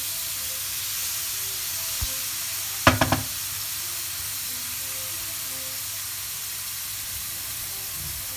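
Diced meat sizzling in hot oil in a frying pan, stirred with a wooden spoon. There is a short cluster of sharp ringing knocks about three seconds in, as the spoon hits the pan.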